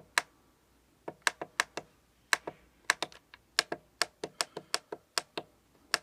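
Alarm clock's time-set button clicking under quick repeated presses: about two dozen sharp clicks, several a second, as the minutes are stepped forward to set the time.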